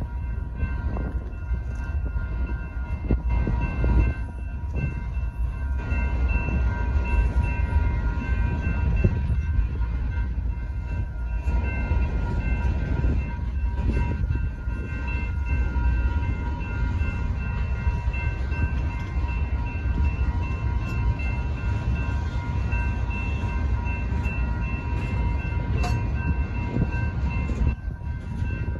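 Freight cars of a manifest train rolling through a grade crossing: a steady low rumble of steel wheels on rail. Over it the crossing signal bells ring continuously.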